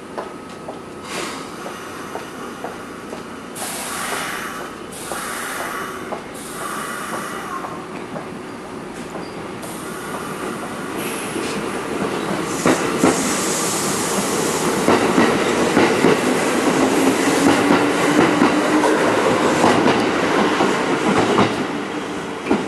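Kintetsu 2680-series three-car electric train pulling out of the station. A few short hisses come in the first several seconds, then it gathers speed past, wheels clicking over rail joints and motors humming, growing louder through the second half.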